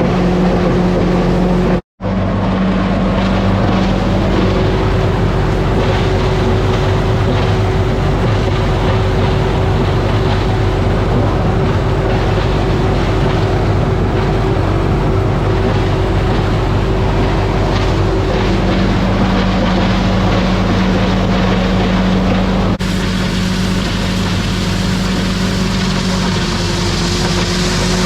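International 1256 tractor's six-cylinder diesel engine running steadily, driving an Artsway grinder-mixer. The sound drops out for a split second about two seconds in and shifts slightly near the end.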